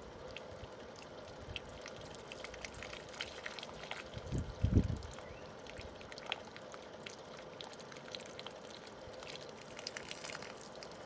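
Boiling water pouring from a kettle over a frozen plastic boiler condensate pipe, splashing and trickling onto paving below to thaw the ice blockage. Two brief low bumps come near the middle.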